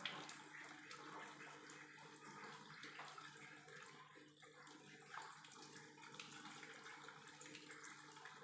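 Faint splashing and trickling of water as cloves and pepper are rinsed and the wash water poured off, over a low steady hum.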